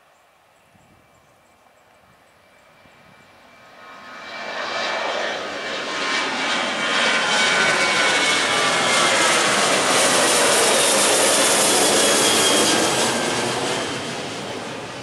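Boeing 737-900 jet's CFM56 turbofan engines at takeoff thrust as it climbs out and passes close overhead. The engine noise is faint at first, swells sharply about four seconds in, stays loud with a falling whine as the jet passes, and begins to fade near the end.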